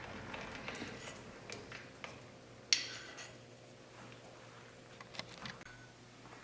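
Scattered faint clicks and taps of metal lathe tooling being handled, with one sharp metallic click about two and a half seconds in, over a faint steady hum.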